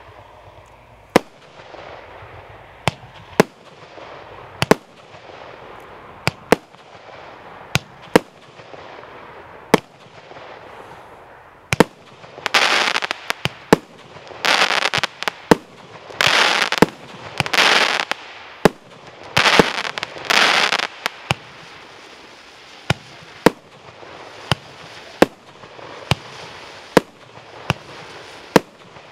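A 36-shot, 30 mm consumer firework cake firing in sequence: single sharp bangs about once a second, with a stretch in the middle where the shots come with longer, louder noisy bursts of about half a second to a second each.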